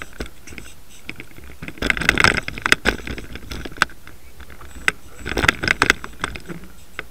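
Heavy conventional fishing reel clicking in two bursts of rapid clicks, about two seconds in and again about five and a half seconds in, while a hooked tarpon is being fought on the rod.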